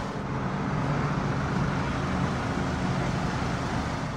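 2012 Volkswagen CC R-Line's 2.0-litre turbocharged four-cylinder engine idling steadily, an even low hum.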